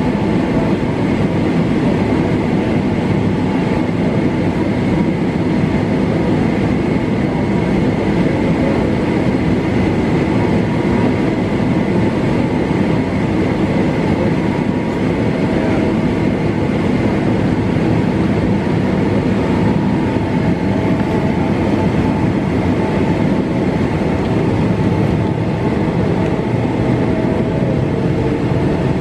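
Jet airliner cabin noise while taxiing: the engines run at idle with a faint steady whine over a low, even rumble from the rolling aircraft.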